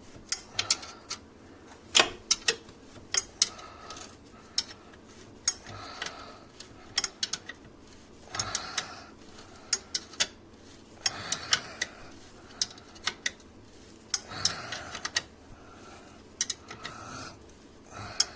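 Hand tools working on the car's underside: sharp metallic clicks and clinks at irregular intervals, some in quick runs like a socket ratchet, with short scraping rustles every few seconds as subframe bolts are fastened.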